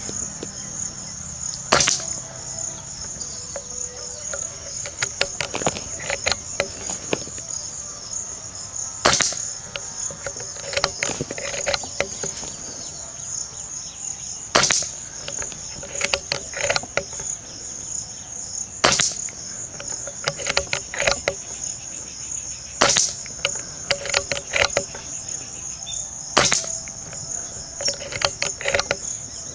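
Diana Stormrider Gen3 regulated PCP air rifle firing a string of shots: six sharp cracks about four to six seconds apart, with fainter clicks between them. Crickets chirp steadily underneath.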